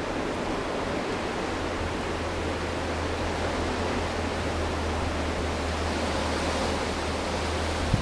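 Blizzard wind blowing steadily: an even rushing noise with a low rumble underneath, swelling a little over the second half.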